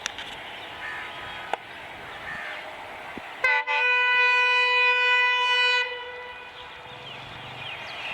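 WDP4 diesel locomotive's air horn: a short toot, then one long blast of about two and a half seconds, steady in pitch, cutting off about six seconds in.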